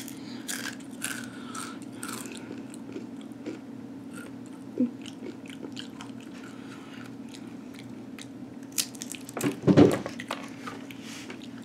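Crunching and chewing of a spicy habanero Takis rolled tortilla chip, a run of small, sharp crunches. About ten seconds in there is one louder burst of noise.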